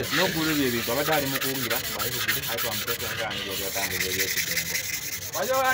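Steady scrubbing by hand against the wall of a diesel engine's cylinder bore, a fast, rasping rub.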